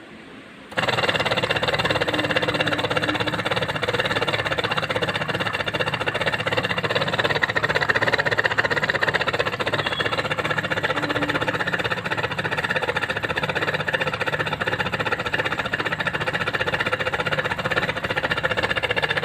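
Small electric motor switched on about a second in, then running steadily with a whine.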